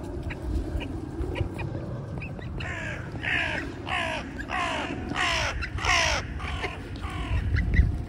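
Hooded crow cawing: a series of about eight harsh caws, roughly one and a half a second, starting about three seconds in.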